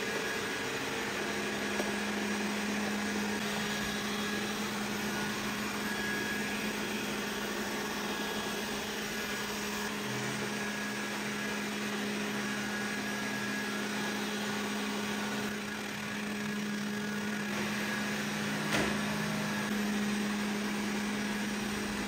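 Xiaomi Vacuum Mop Pro 2 Plus robot vacuum running at standard suction while sweeping and mopping a tiled floor: a steady motor hum with fan whir.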